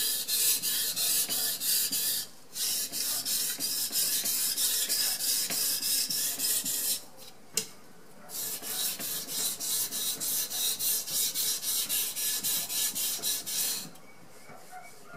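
Soft-steel kitchen knife blade scraped in quick strokes across a wet Carborundum 4000-grit whetstone, several strokes a second: fine-stone refining of the edge, turning the burr. The strokes pause briefly about two seconds in, pause again around seven seconds with a single sharp click, and stop near the end.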